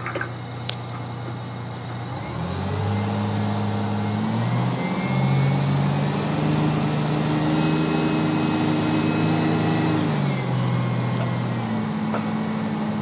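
Fire rescue truck's engine heard from inside the cab, climbing in pitch as the truck pulls away about two seconds in, stepping through a gear change, holding steady, then easing back down near the end.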